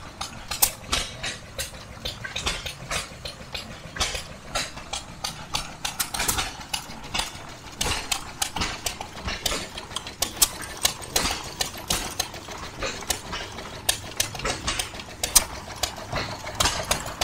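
Antique stationary gas engines running together, an irregular overlapping clatter of sharp pops and clicks, several a second, over a low steady rumble.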